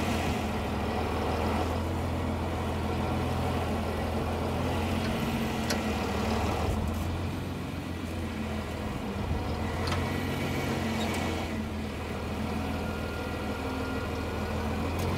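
Farm tractor engine running steadily, heard from the driver's seat.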